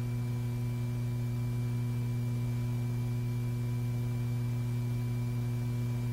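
Steady low electrical hum with fainter higher tones above it: the background hum of an old film soundtrack.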